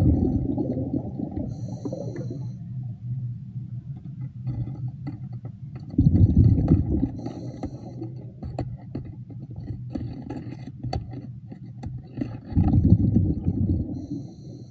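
A diver breathing underwater: three gurgling rushes of exhaled bubbles about six seconds apart, near the start, about six seconds in and near the end, with a faint hiss between them, over a steady low hum and scattered sharp clicks.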